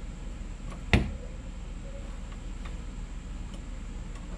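Small metallic ticks from a door window crank being slid onto its shaft and its set screw tightened, with one sharp click about a second in.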